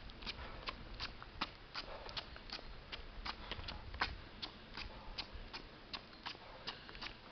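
Running footsteps: running shoes striking an asphalt road in a steady rhythm of nearly three steps a second.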